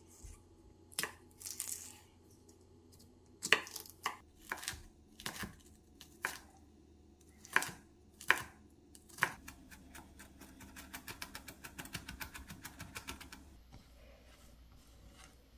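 Chef's knife cutting green chili peppers on a wooden cutting board: single cuts about a second apart, then a fast run of rapid chopping strokes for about three seconds as the peppers are minced.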